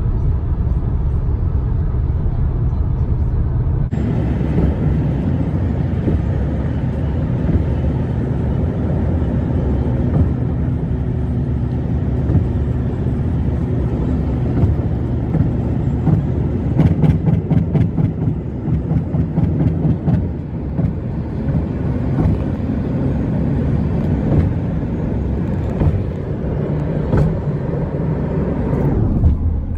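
Steady road and engine drone heard inside a car's cabin while driving at highway speed, with a short run of clicks a little past halfway.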